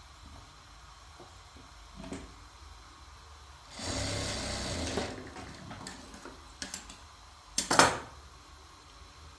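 Sewing machine running in one short burst of about a second, then a few light clicks and a loud sharp clack near the end.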